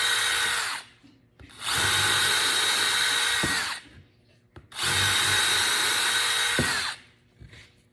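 Cordless drill motor running at steady speed in short bursts: one run stops under a second in, then two more runs of about two seconds each. Each winds down when the trigger is released.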